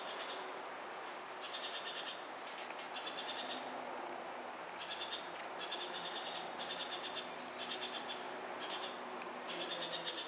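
Short, high, buzzy trills of rapid pulses, repeated about once a second: an animal calling.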